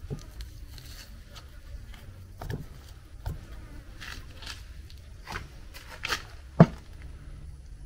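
Scattered light knocks and clicks of cooking utensils and food being handled during food preparation, the loudest knock about two-thirds of the way in.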